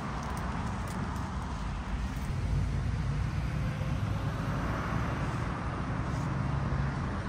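Road traffic on a busy roundabout: a steady low rumble of cars passing continuously, with no single vehicle standing out.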